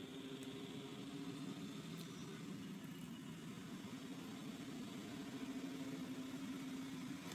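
Faint, steady hum of an idling engine.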